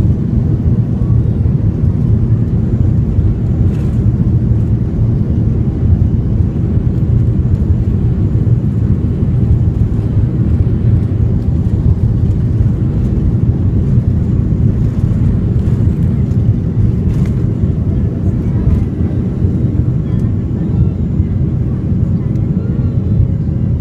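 Boeing 737-300's CFM56-3 turbofan engines at takeoff power, heard inside the cabin as a loud, steady low drone during the takeoff roll.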